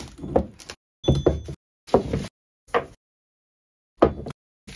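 Cast metal kit parts being unwrapped from paper and set down on a workbench: about six separate knocks and clunks with paper rustling, one of them leaving a brief metallic ring about a second in.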